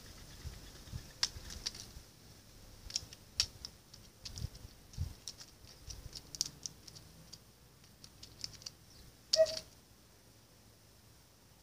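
Jackdaw pecking at seed and peanuts on paving stones: a scatter of light taps and clicks, with one louder, short sound about nine seconds in.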